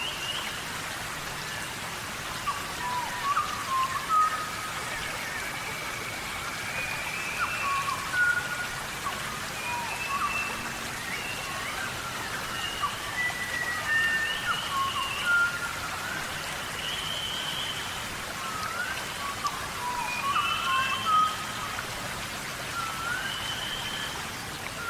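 Steady tropical rainforest rain, with many short whistled bird calls rising and falling over it.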